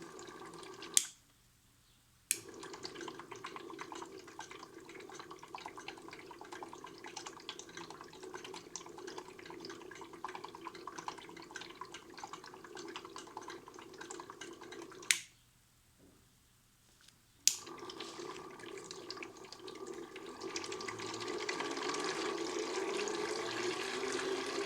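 Water running into a modified Miele toy washing machine during its wash cycle, a steady trickling splash. Twice it is broken by a sharp click, about 1.5 s of near silence, then another click. Near the end it grows louder, with a rising whir.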